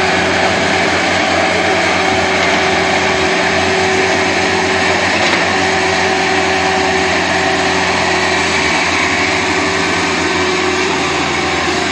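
Engines of two skid-steer loaders, an old Bobcat nearest, running steadily as the machines drive: a loud, constant engine drone with steady tones over it.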